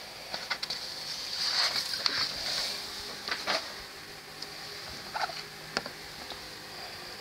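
Handling sounds from a paper instruction manual and cardboard kit box: a spell of paper rustling, then a few light clicks and taps, over a steady high hiss.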